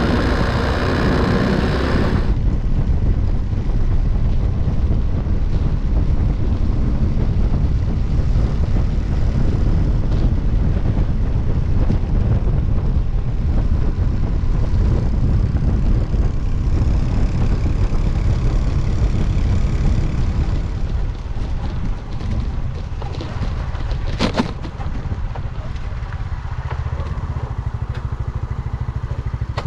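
Honda C90 step-through motorcycle being ridden along a road: its small engine running under heavy wind rumble on the microphone. About two-thirds of the way through it gets a little quieter, and a sharp click comes a few seconds later.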